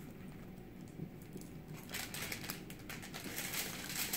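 Aluminium foil crinkling faintly as it is handled and folded around food, picking up from about halfway through.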